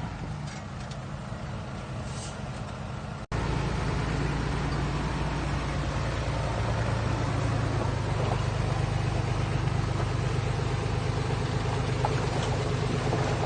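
Diesel engine of heavy earthmoving machinery running steadily at a low, even pitch. About three seconds in the sound cuts out for an instant, then comes back a little louder and keeps running.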